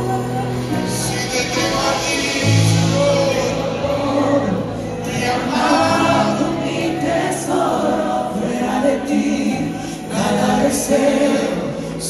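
Live worship team singing a Spanish-language worship song, several voices together over a band with keyboard, sustained bass notes and drums with cymbal strokes.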